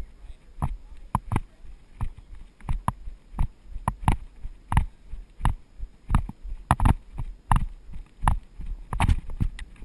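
Horse cantering over hard, dry ground: hoofbeats come as a repeating cluster of knocks, about three strides every two seconds.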